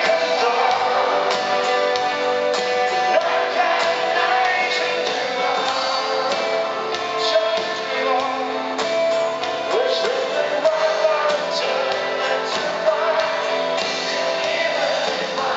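Live band playing a song with a singer, guitars and drums, heard from within the audience.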